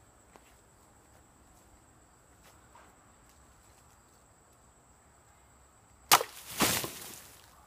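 A one-handed Ritter Steel Lioncrest sword cutting through a plastic Arizona iced tea bottle about six seconds in: one sharp crack at the strike, followed at once by a rougher noise lasting under a second.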